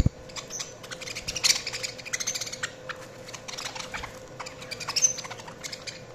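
Budgies chattering: fast trains of short chirps and clicks, with louder flurries about a second and a half in and again around five seconds.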